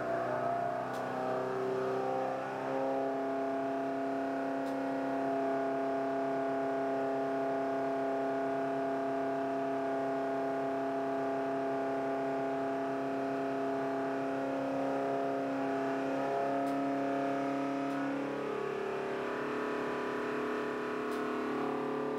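Cosworth BDG 2-litre four-cylinder racing engine with Lucas mechanical fuel injection running on a test-bed dynamometer, held at steady speeds. Its pitch shifts a couple of times around the middle and settles at a new steady speed near the end.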